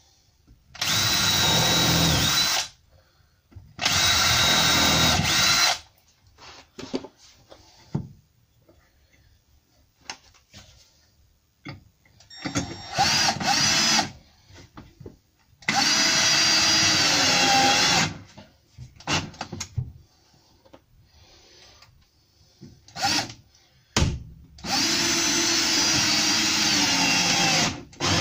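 Cordless drill running in five separate bursts of one to three seconds each as it drills and drives screws into a wooden desk frame, with small knocks and handling sounds between the bursts.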